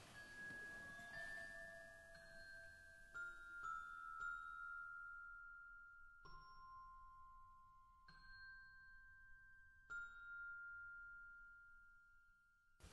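Faint, sparse horror-film score: single high bell-like notes, like a glockenspiel, struck one at a time a second or two apart, each left ringing on.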